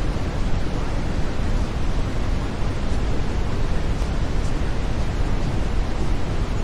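Steady brown noise: an even, deep hiss, heaviest in the low end, with no changes.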